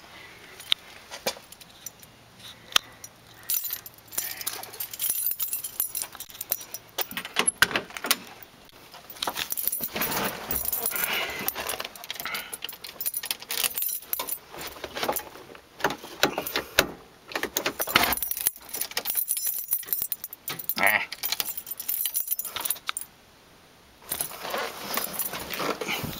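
Keys jangling, with irregular clicks and rustling handling noise and no engine running. The car's battery is dead.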